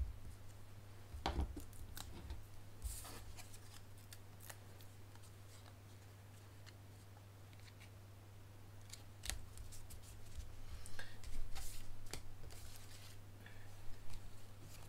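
Paper and card being handled on a tabletop: light clicks and rustles as foam adhesive dimensionals are pressed out of their sheet and a die-cut paper wreath is pressed onto a card, with a quieter stretch in the middle. A low steady hum runs underneath.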